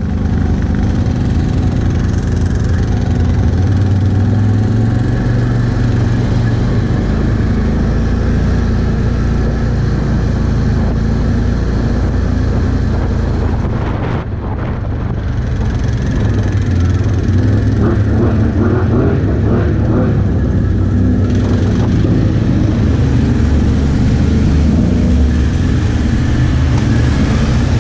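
Can-Am Outlander 1000 ATV's V-twin engine running steadily under way on a rough gravel trail. The level eases briefly about fourteen seconds in, with scattered knocks and rattles from the ground a little later.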